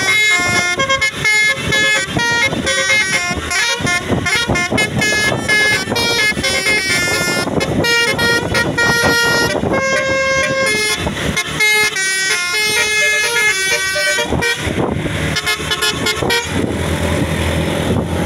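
Telolet 'Basuri' multi-trumpet musical air horn on a Sumberjaya bus playing a fast tune of short, changing notes. Near the end the horn tails off and the bus engine is heard running steadily.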